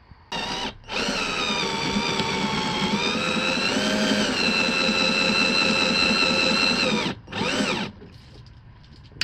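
Power drill running in three goes: a short burst, then a long run of about six seconds whose whine sags and recovers in pitch under load, then another short burst near the end.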